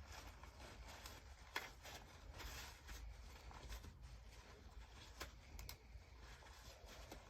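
Near silence over a low hum, with a few faint clicks and rustles of small parts being handled, once about a second and a half in and twice more past the middle.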